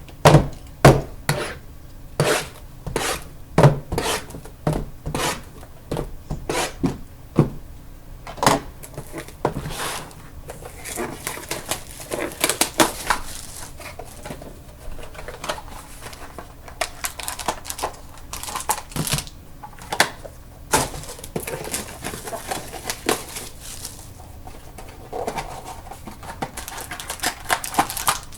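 Trading-card boxes being handled and opened on a table: a quick run of sharp knocks and clacks, then crinkling and tearing of plastic wrap about ten seconds in and again later.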